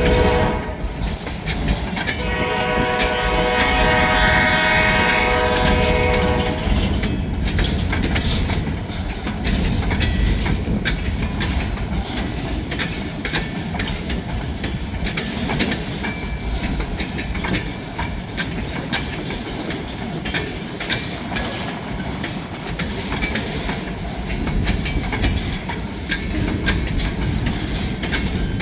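Freight train horn sounding a short blast at the start and a longer multi-tone blast from about two to seven seconds in, then the train's cars rolling past with steady rumbling and wheels clicking over the rail joints.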